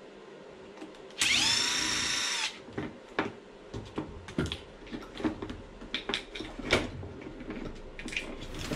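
Cordless drill-driver spinning once for about a second and a half, rising in pitch as it spins up and dropping as it stops, as it backs a screw out of the RC car's receiver box and ESC mount. Light plastic clicks and clatter follow as the loosened ESC, wires and parts are handled.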